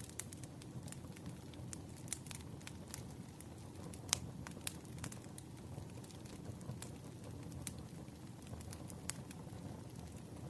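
Wood campfire crackling: burning logs giving off irregular sharp pops over a low steady rumble of flames, with one louder pop about four seconds in.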